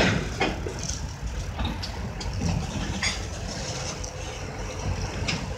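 CSX freight train of boxcars and refrigerator cars rolling slowly in reverse: a low steady rumble with scattered clicks and clanks. A faint steady whine comes in about three and a half seconds in.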